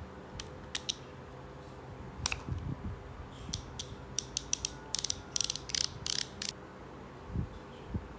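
Freehub ratchet of a White Industries Tracker rear cassette hub clicking in short bursts, densest a little past the middle, as it is turned by hand.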